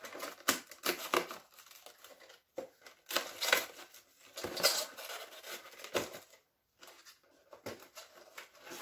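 Cardboard advent-calendar box being pried open and handled: irregular scrapes, small rips and rustles of the card and packaging, with a longer rustle about three seconds in.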